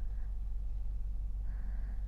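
Soft sleeping breath close to the microphone, one faint exhale near the end, over a steady low hum.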